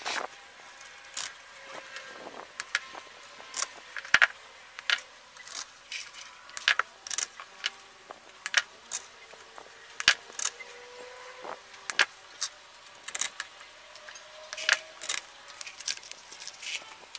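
Stiff glittered artificial fern sprays rustling and clicking as they are handled and set into a floral-foam block: irregular sharp crinkles and ticks, one or two a second.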